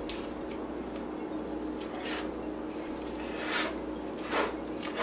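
Soft eating sounds: a last bite being chewed, then a few short slurps as a plate is licked clean, over a steady low hum.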